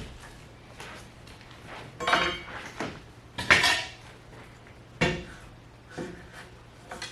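Metal tools being handled: irregular sharp metallic clinks and clattering knocks, a second or so apart, the loudest about three and a half seconds in.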